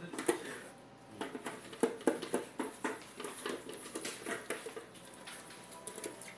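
Two dogs eating from plastic maze-style slow-feeder bowls: irregular chewing and crunching, with quick clicks and knocks of muzzles and food against the plastic.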